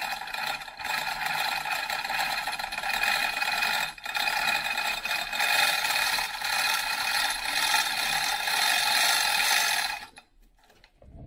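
Manual chain hoist worked by its hand chain, a continuous ratcheting clatter of chain links and pawl as it lowers the sling load of a Bridgeport mill table. It stops abruptly shortly before the end, as the sling goes slack.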